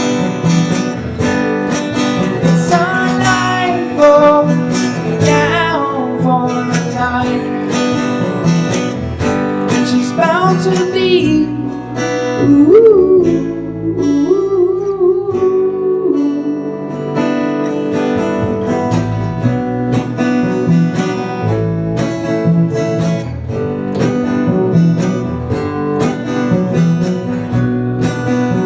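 Acoustic guitar strummed at a steady rhythm in a live performance, with a voice singing wordless sliding notes over it through the first half; then the guitar continues alone.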